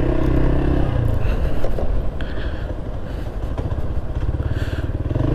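Hero XPulse 200 FI's single-cylinder engine running under way. Its steady note gives way to a lower pulsing about two seconds in and picks up again near the end. The owner says that at 10,000 km the engine now sounds like a blender.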